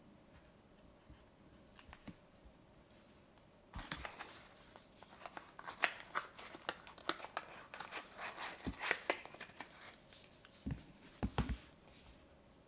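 Close-up handling of a small paperback book and its paper cigarette-box case. A few faint page and paper clicks come first; then, from about four seconds in, a dense run of small clicks and rustles as the book is slid into the cardboard box. A couple of soft thuds near the end come as the closed box is set down on the table.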